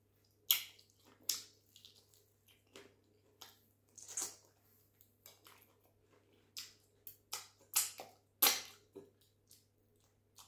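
Wet lip smacks and sucking as sauce-covered fingers are licked clean: a dozen or so short, sharp smacks at irregular intervals, the loudest about half a second in and near the end. A faint steady low hum runs underneath.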